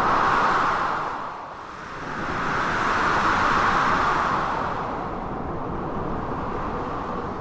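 Storm ambience of blizzard wind and crashing sea waves: a steady rushing noise that swells twice, once at the start and again about three seconds in, then eases off.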